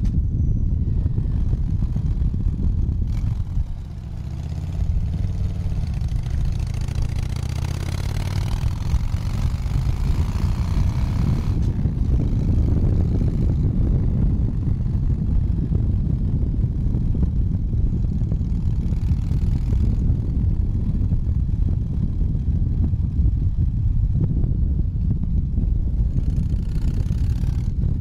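Harley-Davidson V-twin motorcycle being ridden, its engine running steadily. About four seconds in the engine drops back briefly, then pulls up again with rising pitch before settling into a steady cruise.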